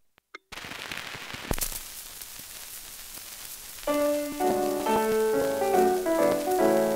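Unrestored 78 rpm gramophone record playing: the hiss and crackle of shellac surface noise, with a sharp click about a second and a half in. About four seconds in, the song's instrumental introduction begins, louder, with the surface noise still under it.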